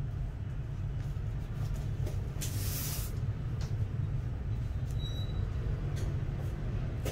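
Steady low rumble of background noise, with a brief hiss about two and a half seconds in and a few faint clicks.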